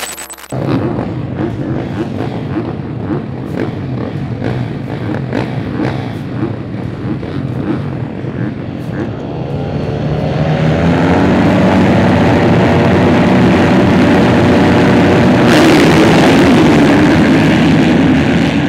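Several motocross bikes racing, their engines revving hard together. From about ten seconds in the engines grow louder and steadier, several pitches at once.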